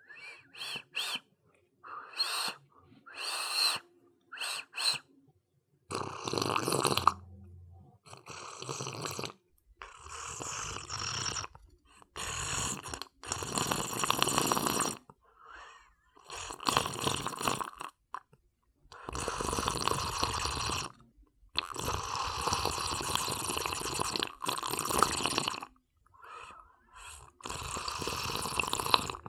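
A person sipping a drink over and over: a few short, quick sips in the first five seconds, then about ten longer sips of one to two seconds each, with short pauses between them.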